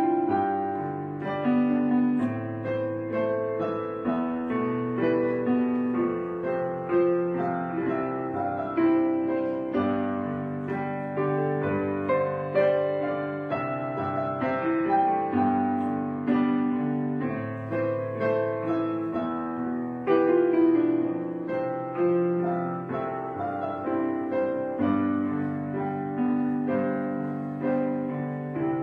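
Gentle piano background music: a slow melody of notes struck about one or two a second and left to fade.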